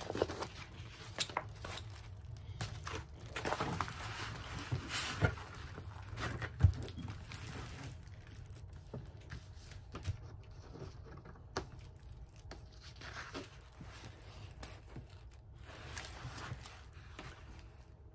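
Clear plastic packaging crinkling and a rolled diamond-painting canvas rustling as it is handled, unrolled and smoothed flat, in irregular rustles that grow fainter after about eight seconds, with one sharp tap about six and a half seconds in.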